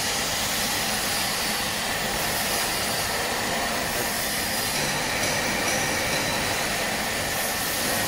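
Steady whooshing hiss of a Riello 40 gas burner's combustion-air fan running through its pre-purge before ignition, with the lamp still red. The level holds even, with no clicks or changes.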